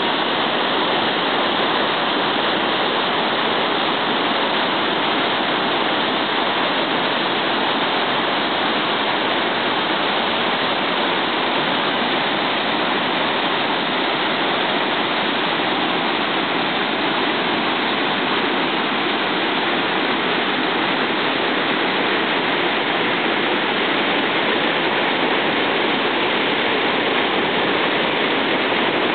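Kiutaköngäs river rapids: whitewater rushing steadily and loudly through a rocky chute, a constant even roar of churning water.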